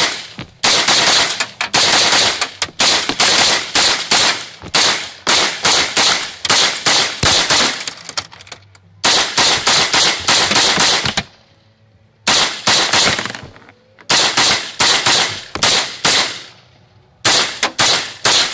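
Windham Weaponry carbon fiber AR-15 rifle fired semi-automatically in rapid strings of shots. A long string comes first, then four shorter strings with pauses of about a second between them, emptying a 40-round magazine.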